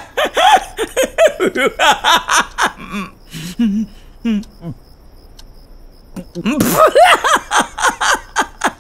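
A man laughing heartily in quick repeated bursts. The laughter dies down to a few stifled chuckles and a short pause around the middle, then breaks out loudly again near the end.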